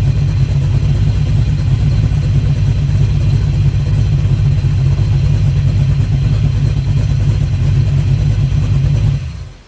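1986 Chevy square-body truck's small-block V8 running steadily under load, with a fast, even firing pulse. It cuts off abruptly near the end.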